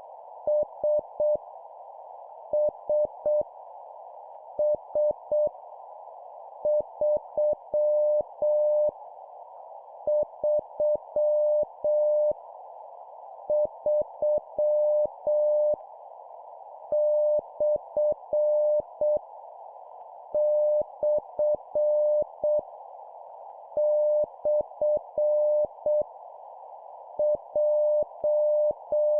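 Morse code (CW) at 7 words per minute: a single steady tone keyed on and off in dots and dashes, in groups separated by short pauses, sending random letters, numbers and punctuation, each repeated three times. A steady band of hiss runs underneath.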